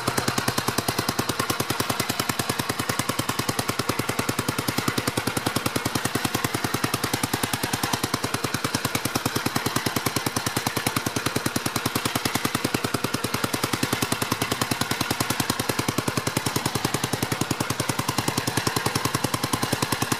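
Single-cylinder engine of a vintage Gravely walk-behind tractor running steadily under way, giving a rapid, even chatter of exhaust beats.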